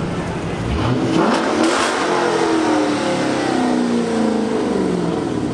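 Car engine revving hard, its pitch climbing about a second in and then sliding slowly down over the next few seconds as it eases off.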